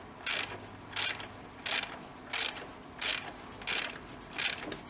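Hand ratchet wrench clicking in short bursts, about one every two-thirds of a second, as each back-swing of the handle turns a bolt on the turbocharger.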